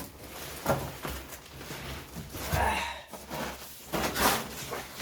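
A large cardboard box being handled and set down: several bumps and a scrape of cardboard.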